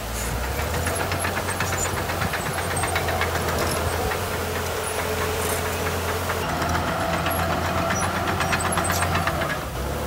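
Diesel engine of heavy construction machinery running steadily under a deep hum, with a fast, even ticking clatter and a faint whine that shifts in pitch partway through.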